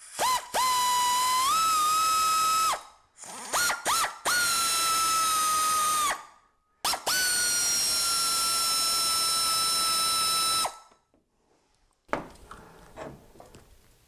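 Cordless drill/driver driving screws into a plastic housing: three runs of a few seconds each, the longest near the end, with short blips on the trigger between them. Faint handling clicks follow.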